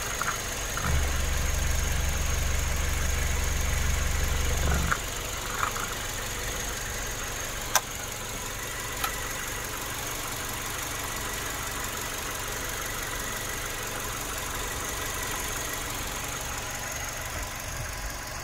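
Hyundai Avante's 1.6-litre LPG DOHC four-cylinder engine idling steadily, heard from over the open engine bay, with a faint high whine. A deeper low rumble swells for about four seconds near the start, and two short sharp clicks come a little past the middle.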